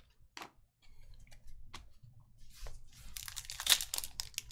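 A few light clicks of trading cards being handled. From about three seconds in, a Panini Prizm retail pack's foil wrapper crinkles and tears as it is ripped open.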